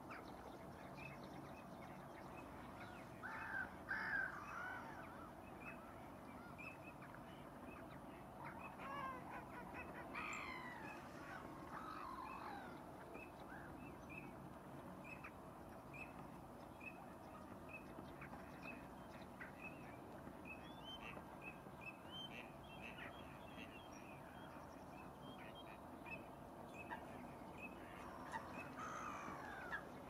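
Faint calls of wild birds: a thin high note repeated steadily throughout, with louder calls from other birds about four seconds in, again around ten to twelve seconds in with notes falling in pitch, and near the end. A low, steady background rumble lies underneath.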